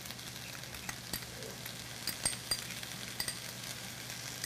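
Yellow chives sizzling steadily in a hot oiled wok while seasoning is spooned in, with a few light clinks.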